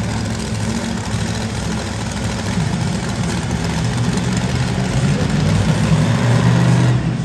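Monster truck engine running steadily at idle, getting a little louder near the end.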